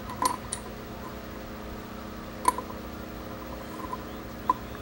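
A handful of light clicks and taps as a cap is worked onto the end of a Maytag 72 engine's mixing tube by a gloved hand, the sharpest about halfway through, over a steady low hum.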